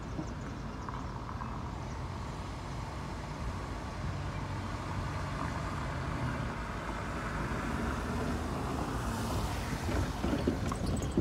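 A minivan drives past close by near the end, its noise swelling and then falling away, over a steady low rumble.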